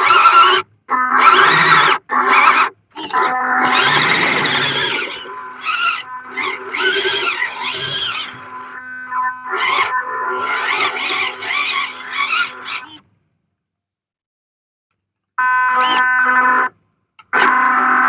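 Stock 180-size brushed electric motor and gearbox of a WPL C24 1/16 RC 4x4 truck whining as it is driven over dirt, the whine surging with the throttle. The sound cuts off abruptly several times, with a silent gap of about two seconds near the end.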